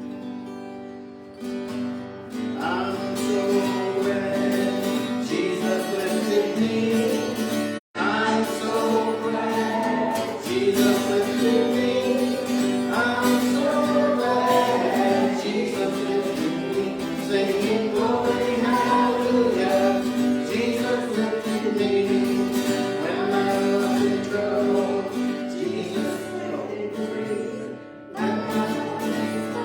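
Congregational gospel music: several voices singing a melody over guitar accompaniment. The sound cuts out for an instant about eight seconds in.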